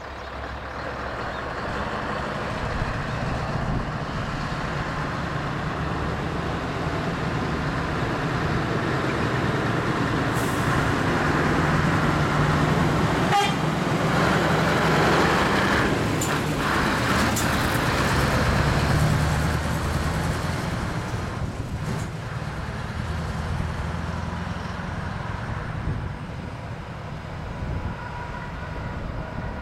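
Scania 164 580's V8 diesel engine running as the truck and semi-trailer drive past and pull away, getting louder toward the middle and fading near the end.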